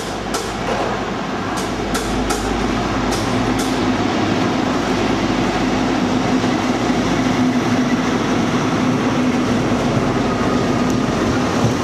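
First Great Western HST, a Class 43 diesel power car hauling its coaches, running along the platform. The power car's engine gives a steady hum that sets in about a third of the way through as it comes by, over the rumble of the train on the rails, with a few sharp clicks in the first seconds.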